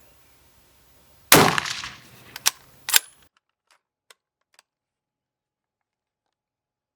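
A single rifle shot from a .30-06 Haenel Jaeger 10 Pro hunting rifle, with a long echoing tail. A few sharp metallic clacks follow about a second later, then the sound cuts off abruptly.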